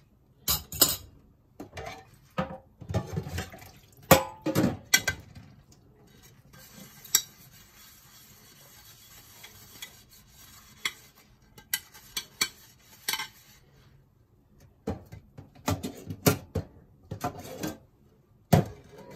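Cutlery and dishes clinking and knocking against each other and the stainless steel sink as they are washed by hand, in irregular clatters with a quieter stretch in the middle.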